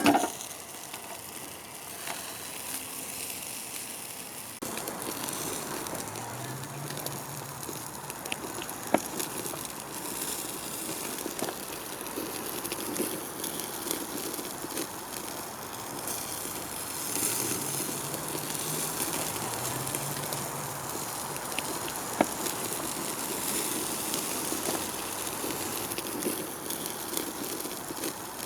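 Cooking fire under a whole chicken on a grill: a steady sizzling hiss with scattered sharp crackles and pops, the two loudest about 9 and 22 seconds in.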